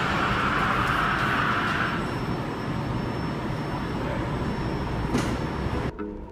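Vancouver SkyTrain linear-induction-motor train pulling into an underground station. Its high whine fades away over the first two seconds as it slows, leaving a steady rumble, with a sharp click about five seconds in. Near the end the sound cuts abruptly to plucked-string music.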